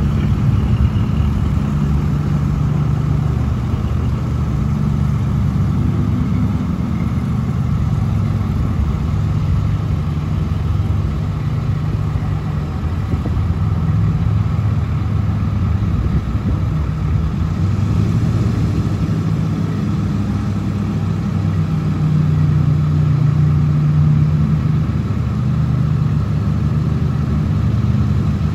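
Pickup truck engine running at low speed, a steady low rumble, as the truck creeps through floodwater.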